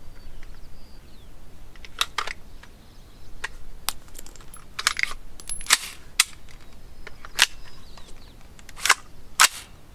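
Sharp metal clicks and clacks of an AR-15 pistol's action being worked by hand to clear a jam, with a case stuck backwards in the ejection port: about ten separate strokes, the loudest two near the end.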